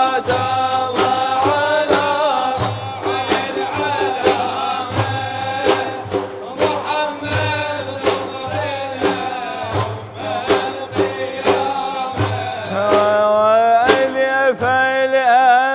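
Male voice singing a drawn-out, ornamented religious praise melody (madih), accompanied by large frame drums beating a steady rhythm.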